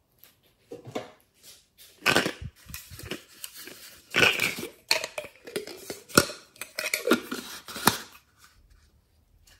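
Hands handling a blue strawberry-shaped plastic container and working at its green lid, making irregular plastic crackling and crunching with several sharp, louder cracks.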